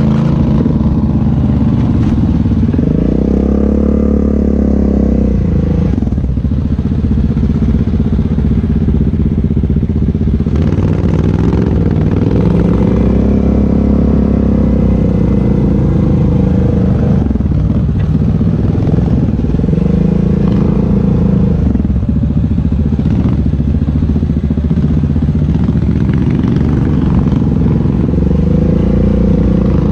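ATV engine heard from on board the quad, running continuously while riding a dirt trail, its pitch rising and falling several times as the throttle is opened and eased off.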